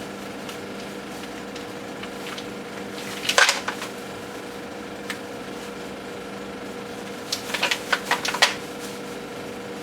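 Mussel shells clattering as they are tipped from a bag into a pot: a brief rattle about a third of the way in, then a longer run of hard clicks and clacks near the end, over a low steady hum.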